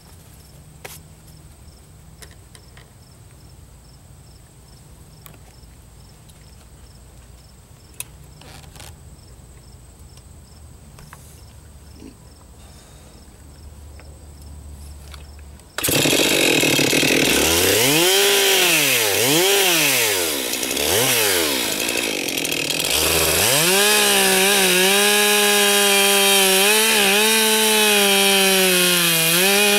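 Stihl MS 441 Magnum two-stroke chainsaw. After a quiet start, the saw comes in suddenly and loud about halfway through. Its revs rise and fall several times, then hold high and fairly steady as the chain cuts down into a solid oak round.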